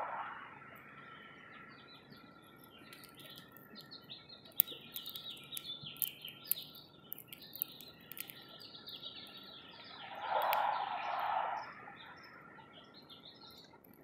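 Small songbirds chirping and twittering in a busy, quick jumble, with a few sharp clicks among the calls; a louder, lower-pitched burst comes about ten seconds in.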